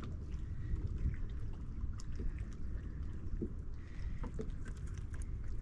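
Water lapping and sloshing against a small boat's hull, with low wind rumble on the microphone and a few faint clicks.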